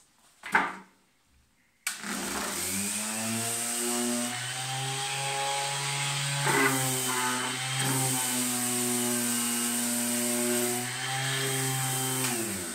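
A short knock, then an electric orbital sheet sander switched on about two seconds in. Its motor runs with a steady buzzing hum and winds down as it is switched off near the end.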